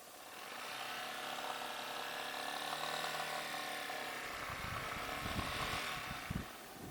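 Yamaha Serow motorcycle's single-cylinder engine running under throttle, its pitch gently rising and easing, with irregular low thumping from about four seconds in.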